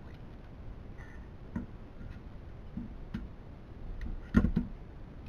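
A few scattered clicks and knocks as tools and parts are handled during the teardown of a DLP TV: single knocks about one and a half and three seconds in, then a louder cluster of knocks about four seconds in.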